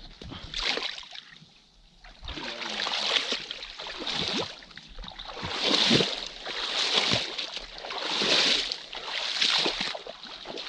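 Shallow river water splashing and sloshing in a run of regular swishes, roughly one a second, starting about two seconds in, as someone moves through the water beside a wooden canoe.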